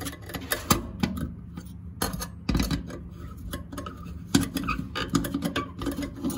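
Irregular metal clicks and scraping, with a few louder knocks, as a stainless steel sink drain strainer is turned clockwise with the metal handle of a kitchen sieve wedged in its cross-piece, tightening the drain fitting.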